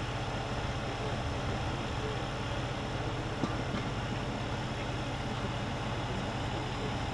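Fire engine's diesel engine idling with a steady low hum and an even pulse. A single short knock sounds about three and a half seconds in.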